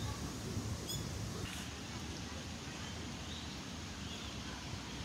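Outdoor park ambience: a steady low rumble and rustle with a few faint, short bird chirps scattered through it.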